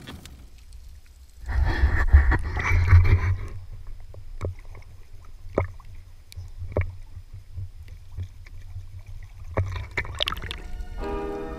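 Sea water splashing and lapping close up at the waterline, with a loud burst of splashing about two seconds in, then scattered light slaps of water. Music begins just before the end.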